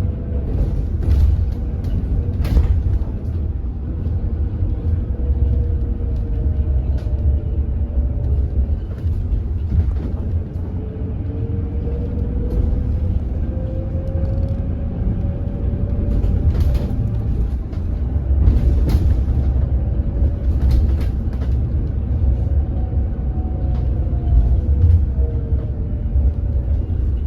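Cabin sound of a hydrogen fuel-cell electric city bus under way: a steady low rumble of road and drive, with the electric drive motor's whine gliding slowly up and down in pitch as the bus speeds up and slows down. Scattered rattles and clicks run over it. The whine is the unusual motor noise the bus is known for.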